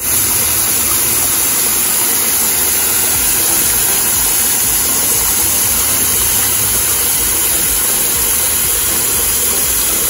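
Water jetting from a garden hose spray wand into a small koi pond as it is refilled: a loud, steady splashing rush that starts abruptly.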